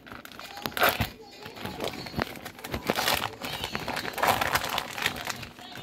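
Plastic bacon packaging crinkling and crackling in irregular bursts as hands pull at it and work it open.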